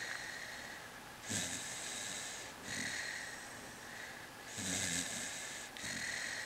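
A sleeping wheaten terrier snoring: slow breaths in and out, each starting with a low rasp and trailing off in a breathy hiss, about two full breaths.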